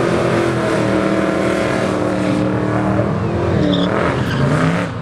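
Holden VH Commodore drag car running at full throttle down the strip. Its steady engine note dips in pitch and climbs back twice in the last couple of seconds.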